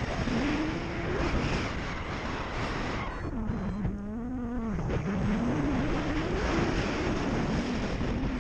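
Airflow rushing over the camera microphone in paraglider flight, with a low tone that wavers up and down in pitch through most of it.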